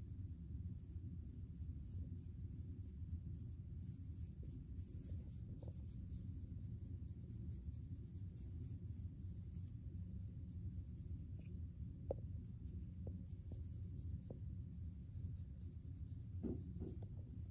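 A fine-toothed comb scratching through short, dry, flaky hair and scalp in quick repeated strokes, loosening dandruff, over a steady low rumble.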